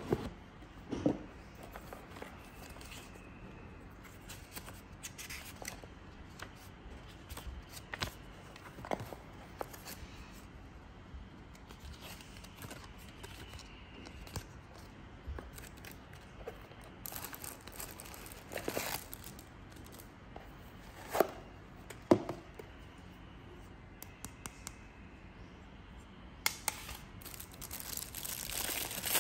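Unboxing handling sounds: a cardboard lens box and its paper leaflet rustle, with a few sharp knocks and scrapes. Near the end, the plastic bag around the lens crinkles steadily.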